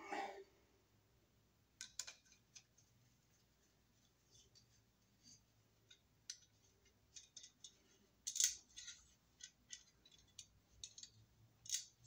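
Sparse light clicks and short scrapes of a screwdriver tip working on a small shallow electrical box, with a louder scrape about eight seconds in and another near the end.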